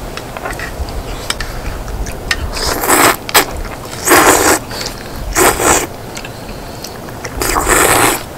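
Close-miked eating sounds from a person at a mukbang meal: about five loud, noisy bursts of about half a second each, with small clicks between them.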